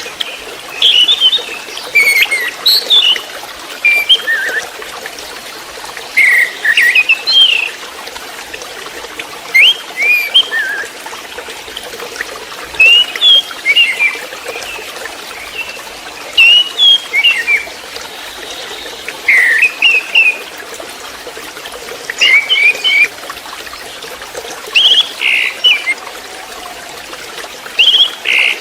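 Young orange-headed thrush (anis merah, 'trotol' stage) singing short whistled and chattering phrases, one every second or two, over a steady background hiss.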